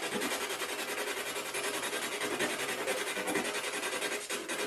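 Steady hiss of radio static from a scanning spirit box, finely and evenly chopped as it sweeps, with a faint steady tone underneath.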